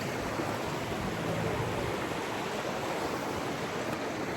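Steady rushing of a fast mountain river over rocks, its rapids making an even, unbroken noise.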